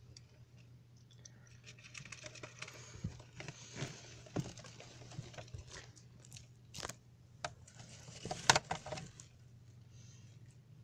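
Dry hay bedding crunching and crackling under a clear plastic hamster exercise ball as it rolls over it, with sharp irregular clicks and knocks of the ball. The loudest knock comes about eight and a half seconds in, over a low steady hum.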